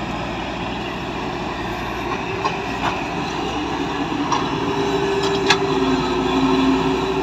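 Heavy diesel earthmoving machinery running steadily, with a few sharp metallic clanks. A steady whine joins about halfway through as the machine works harder.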